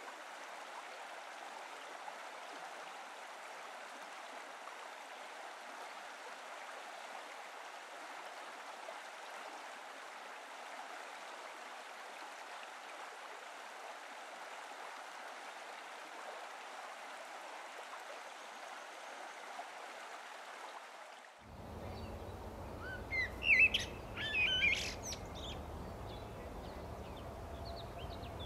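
Steady rush of flowing water that cuts off abruptly about twenty seconds in. Then a few loud, short bird calls over quieter outdoor background.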